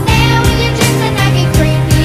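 Music: a song with a steady beat over sustained bass notes.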